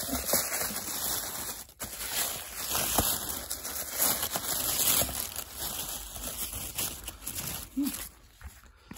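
Paper and plastic packaging crinkling and rustling, with small tearing and clicking noises, as an advent calendar compartment is opened and the small chew toy inside is unwrapped. It dies down near the end.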